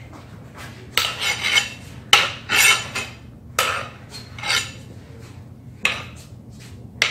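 Long rods clashing in a mock stick fight: a string of sharp metallic clanks at uneven intervals, about eight in all, each ringing briefly.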